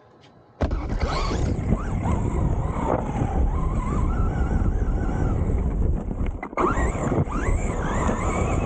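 Traxxas Rustler RC truck's electric motor whining up and down in pitch as it is driven, over heavy wind rumble on the microphone. It starts suddenly about half a second in and drops out briefly near the end.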